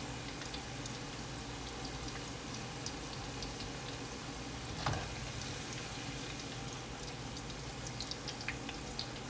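Potato chips deep-frying in hot oil in a wok: a steady sizzle with scattered small pops and crackles, and one louder knock about halfway through.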